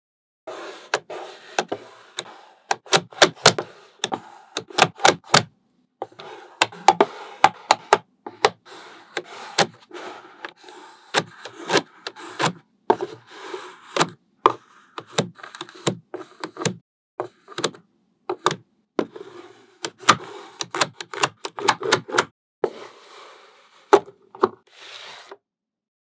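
Small magnetic balls snapping together with sharp clicks, in quick irregular clusters, with the balls rubbing and scraping against each other between clicks.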